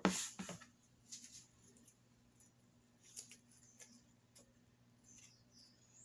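Scissors and floral tape being handled on a cutting mat: a short sharp sound at the start, then a few light, scattered clicks and rustles.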